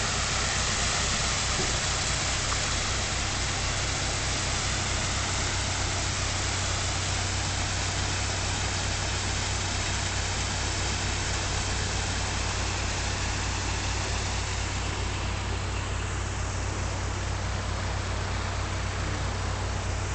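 Narrowboat's diesel engine idling with a steady low throb, under a constant rush of water pouring through the lock gate paddles to fill the lock.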